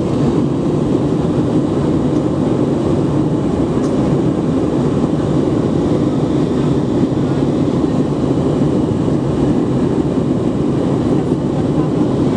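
Steady cabin noise of an Airbus A320-family jet airliner in flight: engine and airflow noise heard from inside the passenger cabin, deep and even throughout.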